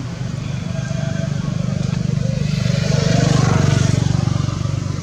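A motor vehicle's engine, growing louder to a peak a little past the middle and then fading as it passes by.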